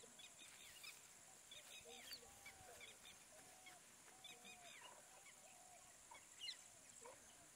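Faint bird calls: many short sweeping chirps and whistles, with lower arching calls among them and one louder call near the end, over a steady high hiss.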